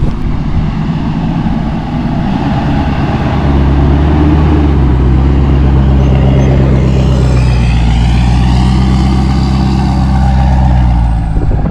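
Motor vehicle engine running with a steady low note, growing louder about three and a half seconds in.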